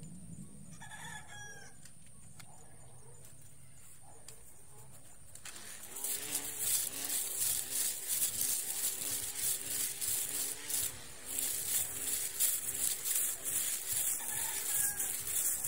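A rooster crows once about a second in. From about six seconds in, a battery-powered electric grass trimmer runs and cuts grass: a loud, high hissing whir that pulses unevenly.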